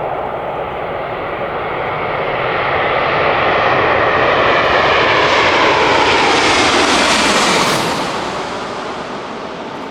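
Boeing 787-8 airliner on landing approach passing close by, its Rolls-Royce Trent 1000 turbofans and airframe making a rushing jet noise. The noise swells to a peak about seven seconds in, with whining tones that slide down in pitch as it goes past, then eases off.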